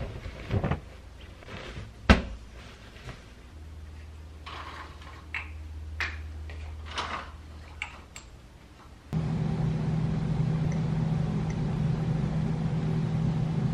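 Household handling sounds: bedding rustling with a sharp knock, then window blinds rattling as the slats are handled and opened. About nine seconds in, a steady hum starts abruptly and runs on.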